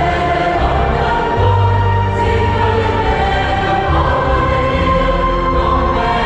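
Church choir singing a Vietnamese Catholic hymn in parts, with instrumental accompaniment.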